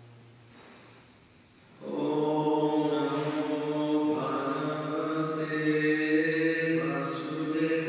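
A man chanting a devotional mantra into a microphone in long, held notes, starting suddenly about two seconds in after a quiet pause.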